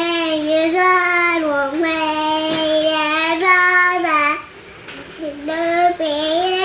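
A toddler singing in long held notes, breaking off about four seconds in and then starting another phrase.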